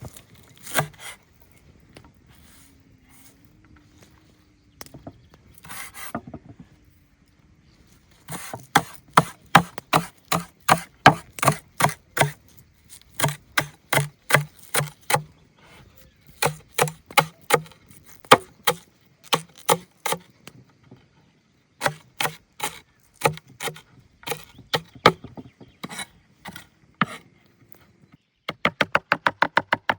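Repeated chopping strikes on wood, in quick runs of about three blows a second with short pauses between them. Near the end a faster, very even beat takes over.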